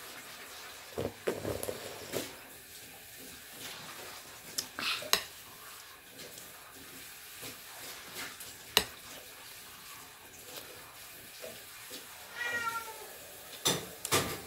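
Eating from a glass bowl: a metal spoon clicking against the glass now and then, the sharpest click about two-thirds of the way in, with mouth sounds of eating and slurping. Near the end come a few short, high, falling squeaky cries.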